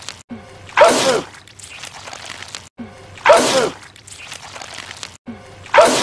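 A voice sneezing loudly three times, about two and a half seconds apart. It is the same sneeze repeated each time, with a brief cut to silence just before each one.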